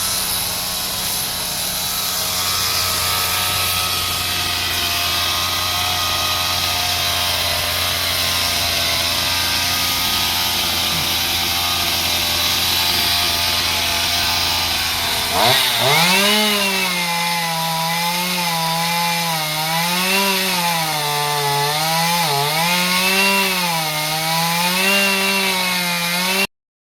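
Gas chainsaw running at a steady pitch, then about two-thirds of the way through revving up sharply, its pitch wavering up and down repeatedly as it cuts wood.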